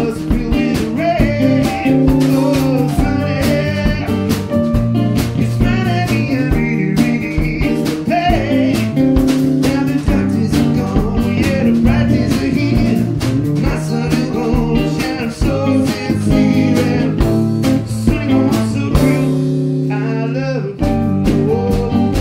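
Small live band playing a blues-rock number: electric guitar, electric bass, drum kit and keyboard. About three-quarters of the way through the drums and low end drop out for a moment before the full band comes back in.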